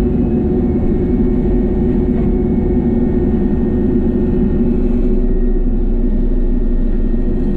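Small excavator running under hydraulic load with its 42-inch Bushmaster bush-hog cutter head spinning through brush and small trees: a loud, steady drone of engine and hydraulics.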